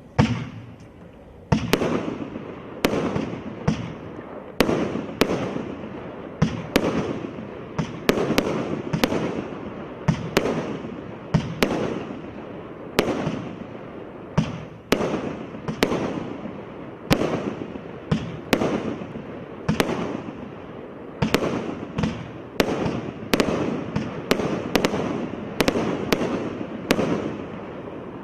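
Absolute Fireworks 'Twisted Twins' firework going off as a steady run of sharp shots, about one or two a second, each followed by a burst that trails away.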